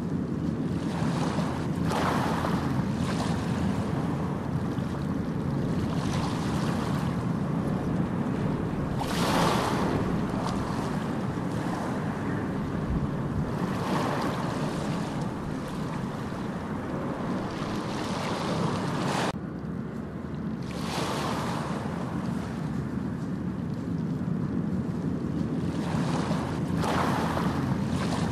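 Steady rushing noise like ocean surf, swelling and easing every few seconds.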